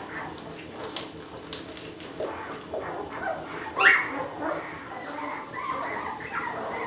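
Nine-day-old Labrador retriever puppies whimpering and squeaking in many short high cries, with one louder squeal about four seconds in.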